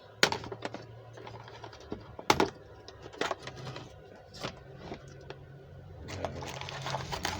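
A mini lathe's accessory toolbox being opened and its tools and parts handled: scattered sharp clicks and clatters, the loudest near the start and about two seconds in.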